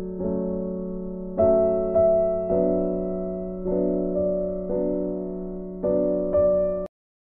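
Background instrumental music: slow sustained chords struck roughly once a second, cutting off suddenly near the end.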